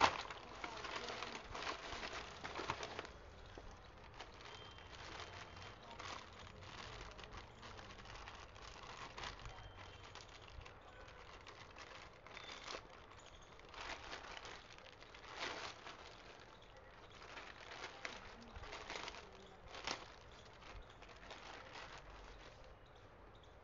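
Paper courier bag and clear plastic wrapping rustling and crinkling in irregular bursts as hands pull a pair of jeans out and unwrap them.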